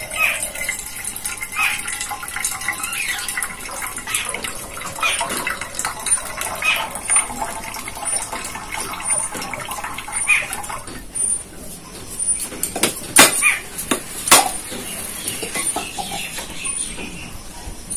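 Coconut water trickling from a cracked coconut into a small steel bowl, then, about twelve seconds in, a few sharp knocks as a blade strikes the shell and it splits.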